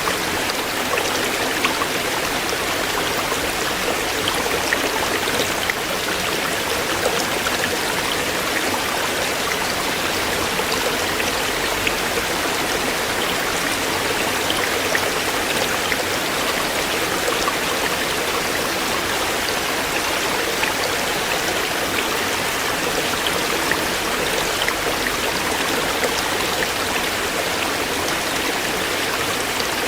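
Shallow stream running over stones, a steady rush with fine scattered splashes and trickles.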